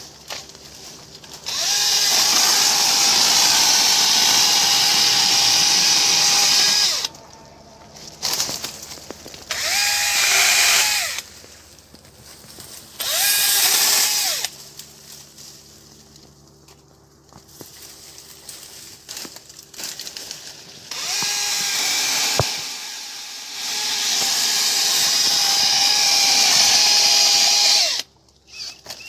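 Electric pruning saw cutting plum tree branches in five runs: three long cuts and two short bursts. The motor whine rises as each run starts and winds down as it stops.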